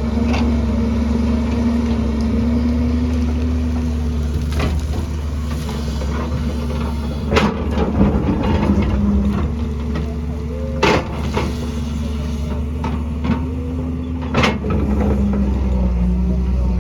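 Excavator's diesel engine running steadily under load, with a handful of sharp metallic clanks and knocks over it, loudest about halfway through and again near the end.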